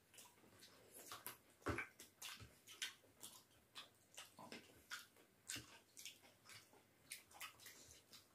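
Faint, close-up sounds of eating by hand: wet squelches as fingers mix rice with dal, and smacking chewing, a quick irregular patter of small clicks and smacks.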